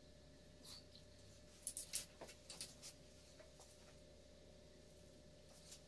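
Near silence with a few faint, short scratches and light clicks from hand work on top of the transmission casing, clustered about two seconds in.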